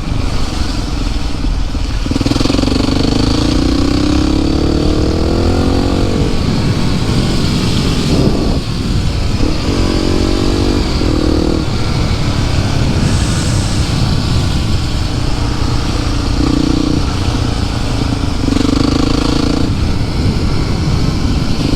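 Yamaha WR motorcycle engine running under way, its pitch climbing in long sweeps and dropping back in steps with throttle and gear changes. A steady low rumble of wind buffets the microphone throughout.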